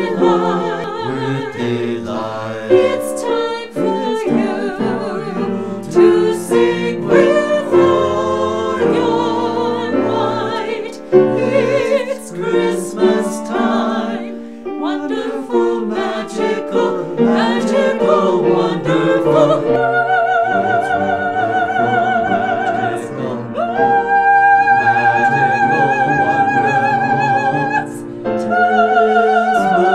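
Small mixed group of voices singing a Christmas carol in harmony, with vibrato. From about two-thirds of the way through, long high notes are held one after another.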